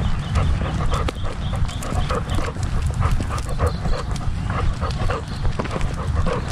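A Labrador retriever panting in a quick, even rhythm, heard close up through a camera mounted on its back. A steady low rumble runs underneath.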